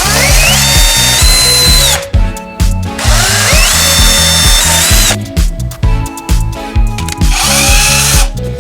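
Electric drill spinning up to speed, running briefly and stopping, three times, over background music with a steady beat.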